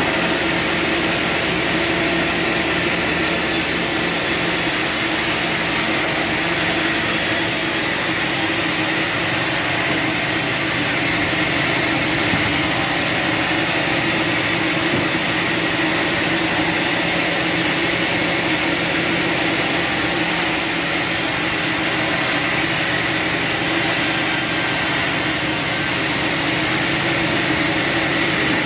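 Band sawmill running: a steady motor drone with a higher whine over it, unchanging throughout.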